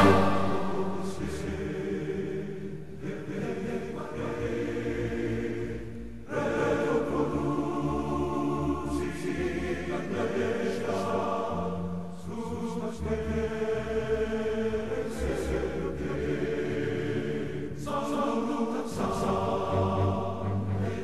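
Slow choral music: voices singing long held notes in phrases that break off about every six seconds.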